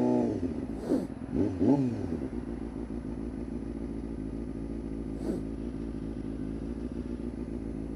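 A 1992 Honda CBR250RR's 250 cc inline-four engine, fitted with a Musarri aftermarket exhaust, drops from high revs, is blipped up twice in quick succession about one to two seconds in, then runs at a steady low note.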